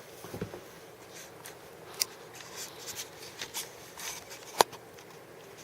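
Light rustling and scattered clicks of small objects being handled. There is a sharp click about two seconds in and a louder one about four and a half seconds in.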